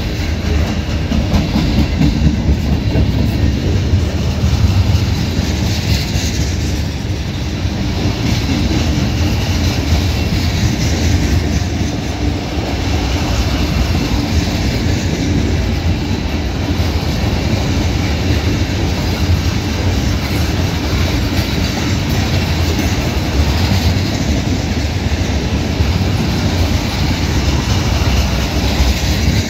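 Freight cars of a long manifest train rolling past at speed: a steady, loud rumble of steel wheels on the rails with a clickety-clack.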